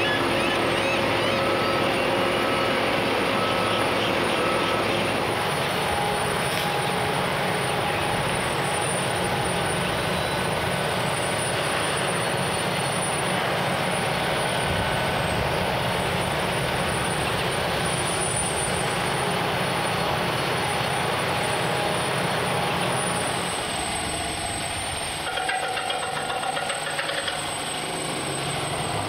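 Steady mechanical noise of heavy equipment running, with a thin high steady tone throughout.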